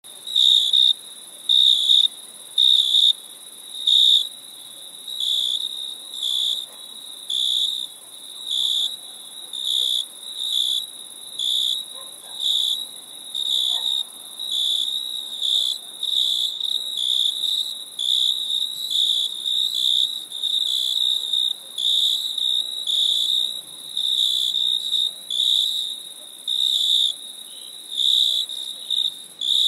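Crickets chirping: a high, pure-toned chirp repeating in short bursts about once a second, over a fainter steady high-pitched insect buzz.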